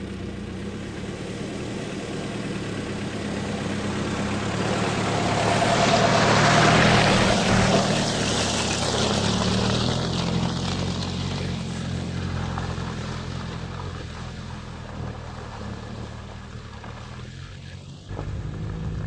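1989 Mitsubishi Pajero's engine pulling the 4x4 through deep mud ruts and puddles, with its tyres churning mud and water. It gets louder as the vehicle comes close and passes, then fades as it moves off.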